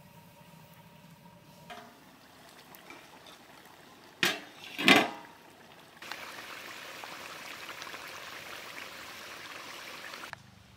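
Two loud, short sounds in quick succession about four seconds in. About six seconds in, pangas fish curry starts simmering in a large metal pot, a steady bubbling hiss that cuts off shortly before the end.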